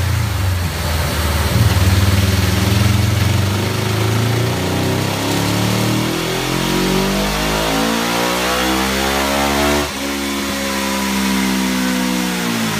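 Laverda 750S Formula parallel-twin motorcycle engine on a roller dyno. It runs steadily at low revs, then its note climbs steadily for about six seconds in a dyno pull. Near ten seconds in the throttle snaps shut and the engine winds down with a falling note.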